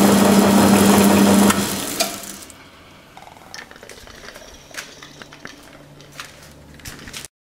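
Cutoff saw with its coolant pump running: a steady hum over a hiss of flowing coolant. It is switched off about a second and a half in and dies away within a second, leaving only faint clicks and knocks.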